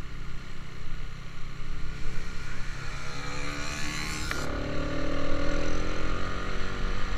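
Motorcycle engine accelerating, its pitch rising, with a gear change about four seconds in before it climbs again, over wind rumble on the microphone.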